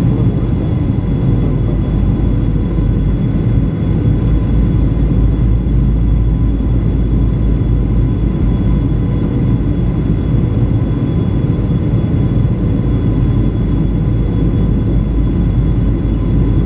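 Steady cabin noise of a Boeing 737-900 in flight: a low, even rush of airflow and the two CFM56-7B engines, with a few faint steady tones above it.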